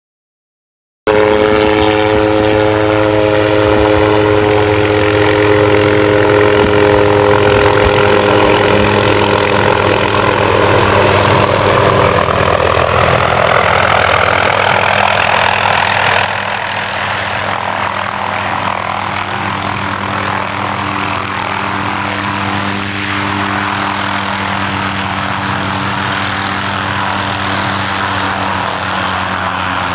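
An MD 500-series light helicopter running close by, coming down from just above the treetops to sit on the grass. It is a loud, steady engine and rotor sound with a sweeping swish, starting abruptly about a second in. About sixteen seconds in it drops to a lower, steady level.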